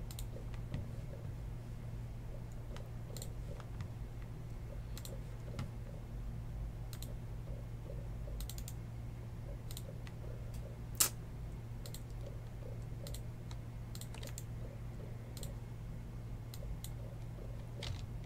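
Computer keyboard being typed on in short, scattered runs of key clicks, with one sharper click about eleven seconds in, over a steady low hum.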